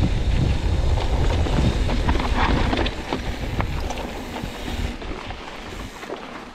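Wind buffeting the microphone over a YT Capra mountain bike rolling down a dirt trail, with scattered clicks and rattles from the bike. The low rumble eases off about three seconds in.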